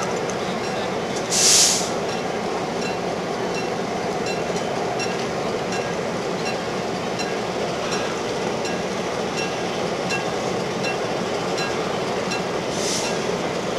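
Locomotive running steadily, with two short hisses of released air, one about a second and a half in and one near the end, over faint regular ticking.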